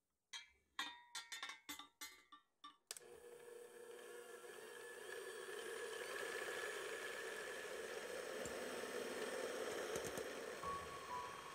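A quick run of about eight sharp clicks and knocks, then an electric hand mixer starts and runs steadily, its twin beaters whisking eggs in a glass bowl, building up over the first few seconds.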